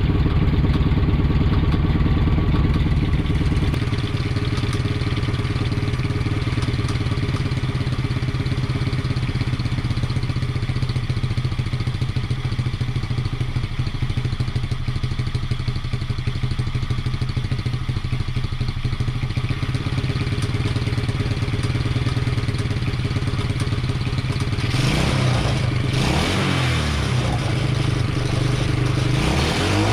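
Coolster 3050C 110cc four-stroke single-cylinder ATV engine idling steadily while its carburettor is tuned, then revved with the throttle, its pitch rising and falling, about 25 seconds in and again right at the end to test the throttle response. The owner hears an exhaust leak at the exhaust head.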